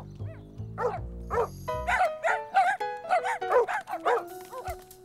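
Cartoon dogs barking in a quick series of short barks as they run past, over background music whose low bass notes stop about two seconds in.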